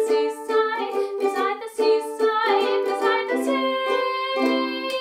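Ukulele strummed in a steady rhythm, closing on longer held chords near the end, with a woman singing along.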